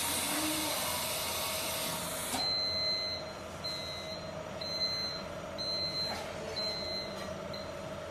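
Pneumatic hot press letting out compressed air in a loud hiss that cuts off suddenly about two seconds in, as the press opens. Then its buzzer gives five or six short, high beeps about a second apart over the machine's steady hum.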